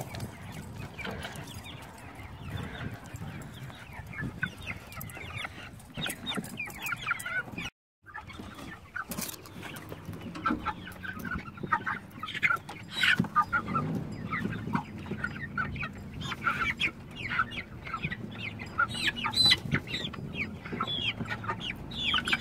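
A flock of young meat chickens (broilers) calling: many short clucks and peeps overlapping. The sound drops out briefly about eight seconds in.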